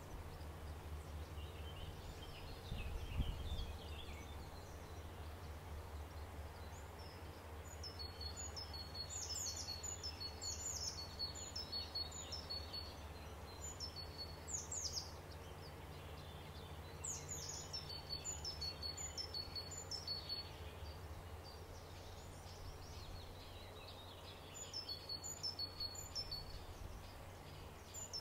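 Outdoor ambience with a small songbird singing several short phrases of quick high notes, a few seconds apart, over a steady low rumble. A single low thump about three seconds in.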